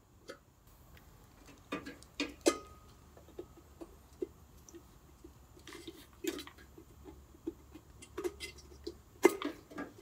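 Scattered short clicks and light knocks from an H4 headlight unit and its wiring plug being handled, as the plug is pushed onto the lamp's terminals; the sharpest click comes about two and a half seconds in.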